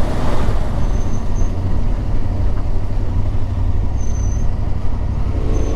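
Yamaha Ténéré 700 motorcycle's parallel-twin engine running steadily while riding along a road, a low even drone under a rush of road and wind noise.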